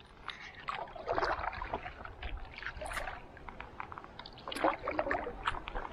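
Water lapping and splashing against a stand-up paddle board, with irregular small clicks and two louder splashes, about a second in and near the end.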